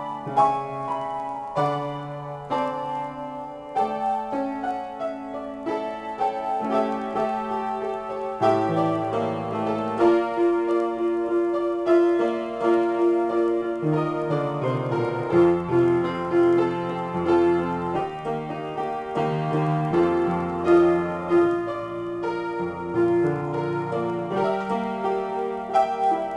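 Solo piano improvisation: full two-handed chords over moving bass notes, with one middle note struck over and over through the middle of the passage.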